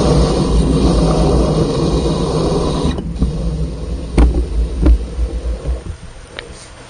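A vehicle's engine and road rumble, loud at first and then dying down steadily from about three seconds in. A few sharp knocks or clunks come in the middle.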